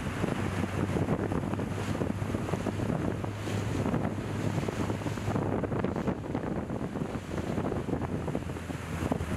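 Wind buffeting the microphone over the rush of a choppy sea, with a steady low hum underneath.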